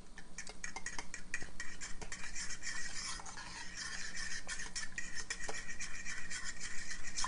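A metal fork stirring a thickening roux in a saucepan: rapid, rhythmic scraping of the fork against the pan.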